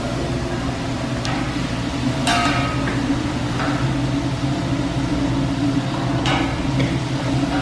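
Large round Mongolian barbecue griddle being worked by a cook: a long metal spatula clanks and scrapes on the steel four times over a steady machine hum of the commercial kitchen.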